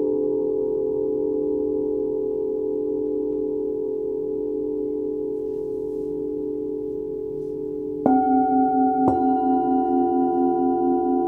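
Forged Tibetan singing bowls ringing, several steady tones slowly fading. About eight seconds in a bowl is struck, then another a second later, starting fresh, louder ringing tones with a slow wavering pulse.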